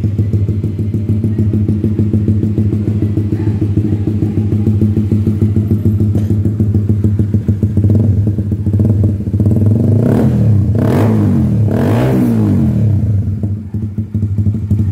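Honda CBR150R's single-cylinder four-stroke engine idling through an Austin Racing aftermarket exhaust. A little past the middle it gets two short throttle blips about two seconds apart, the pitch rising and falling back each time.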